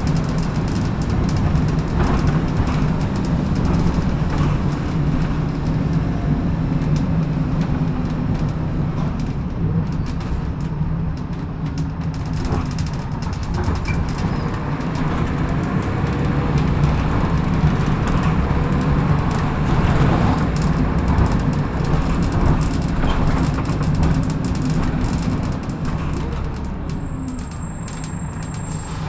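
Volvo B10BLE single-deck bus running under way, heard on board: a steady low engine drone with rattles and clicks from the body. Near the end a thin, high-pitched whistle starts and holds steady, the weird whistling noise this bus makes before its air is released.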